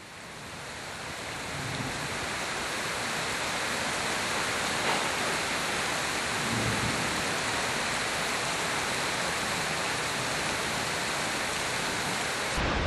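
Steady rushing water sound, fading in over the first two seconds and then holding even.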